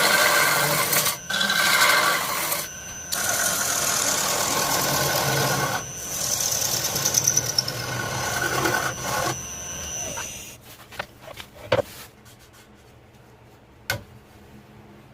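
A power tool working wood, running in long stretches with short pauses and a steady high whine. It stops about ten seconds in, and a few sharp knocks follow.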